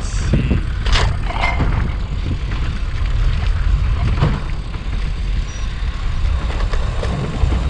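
Wind buffeting the microphone and tyre noise as a bicycle rolls along the road, a steady rumble with a few light knocks and rattles.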